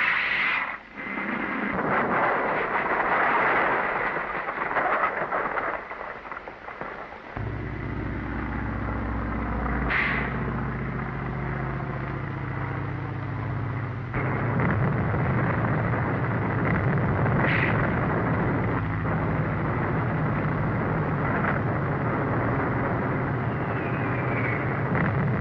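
Film sound effects from an old, narrow-band soundtrack: a noisy rumble with a few sharp flares, joined about seven seconds in by a steady low drone like engines that runs on under the noise, with abrupt changes at about seven and fourteen seconds.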